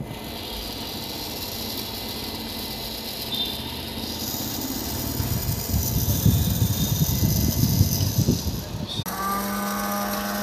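Battery-powered toy washing machine running, its small electric motor whirring, with handling and rattling in the middle; about nine seconds in the sound changes suddenly to a steadier, clearer motor whine.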